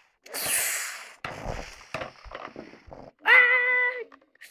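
A child making play sound effects with the voice: a breathy hiss, then small clicks and knocks of toys being handled, then a held high-pitched 'aaah' cry about three seconds in that dips at the end.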